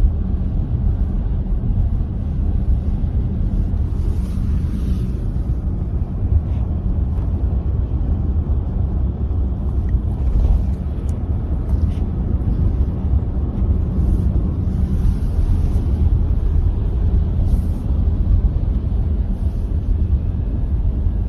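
A loud, steady low rumble with a few faint ticks on top.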